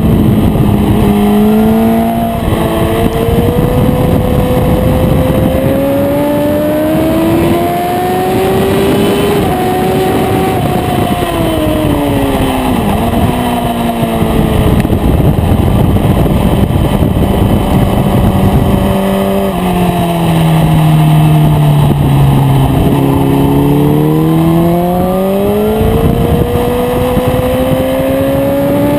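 Aprilia RSV4's V4 engine heard onboard at racing speed, its revs rising and falling as it accelerates and slows for corners. The pitch drops about two-thirds in, then climbs steadily toward the end, over steady wind noise.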